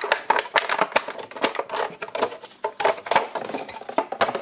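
Plastic infrared thermometer, its clear plastic bag and its cardboard box being handled and packed away: a quick, irregular run of clicks, taps and light crinkles.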